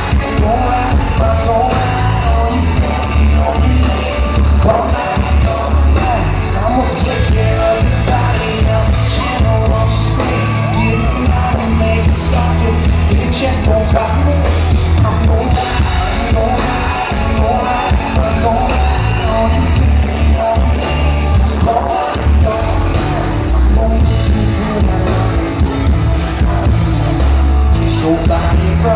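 Live country-rock band playing loudly in a large hall: a male singer over electric guitars, drums and heavy bass, with a steady beat throughout.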